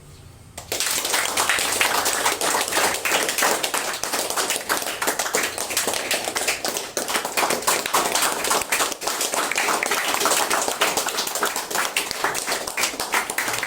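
A group of people clapping, starting about half a second in and going on steadily.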